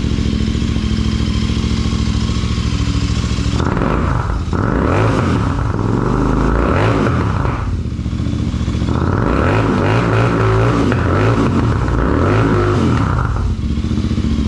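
Royal Enfield Continental GT 650 parallel-twin with Zard slip-on mufflers idling in neutral, then revved twice, each rev held a few seconds before dropping back to idle.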